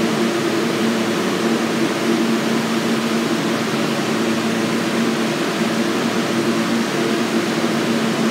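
R160 subway train standing in the station with its doors open: a steady hum with a few held low tones from its air conditioning and on-board equipment, over an even hiss.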